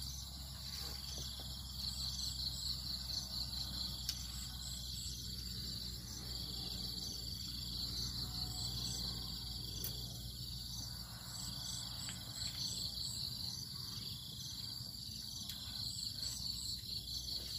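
Insects in the surrounding grass chirring in repeated pulsing trills, high in pitch and continuous, over a low steady background hum.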